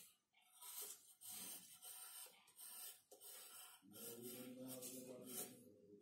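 Graphite pencil scratching on drawing paper in short repeated strokes while sketching and shading.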